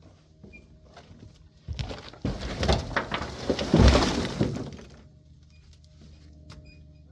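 A burst of cracking and crunching, about three seconds long, starting under two seconds in and loudest near the end, as of material being broken apart.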